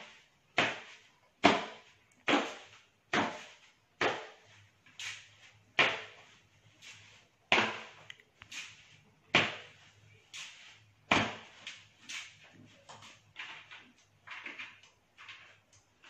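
A large decorated gourd being beaten by hand as a drum: sharp, hollow strikes keeping a steady beat of about one a second. Lighter, quicker taps come in toward the end.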